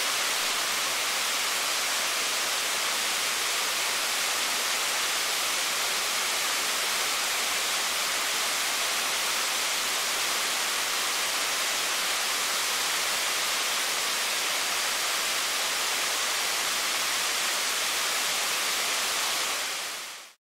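Waterfall: a steady rush of falling water that cuts off near the end.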